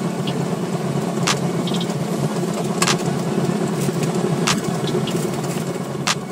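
Cessna 172's piston engine running at low taxi power as the plane rolls along the pavement, a steady drone heard from inside the cockpit. Sharp ticks come about every one and a half seconds, and the sound begins to fade near the end.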